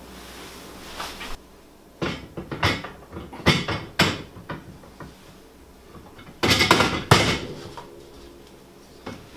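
A wooden pantry pull-out unit is set onto a Fulterer FR777.A heavy-duty pantry slide. First comes a smooth sliding hiss as the runner is drawn out. Then there are several wooden knocks, and about six and a half seconds in a louder clatter ending in a sharp click as the unit is seated on the runner.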